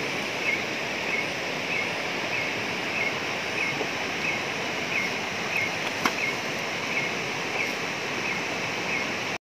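Rocky forest stream rushing steadily over stones, with a short high chirp repeating about twice a second over it and a single sharp click about six seconds in.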